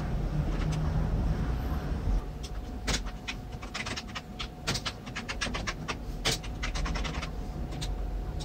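Old desktop PC running with a steady low hum, and from about two and a half seconds in a run of quick, irregular clicks from the computer setup.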